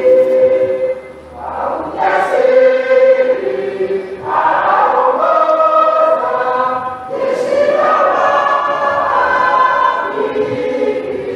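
Mixed church choir of women and men singing a hymn in sustained full chords, in long phrases, a new one beginning every two to three seconds.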